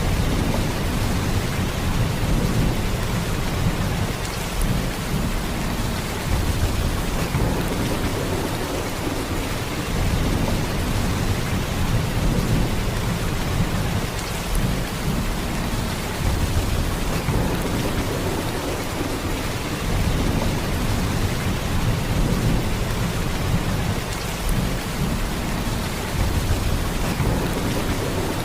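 Heavy rain pouring steadily, with a deep low rumble underneath that swells and eases every few seconds.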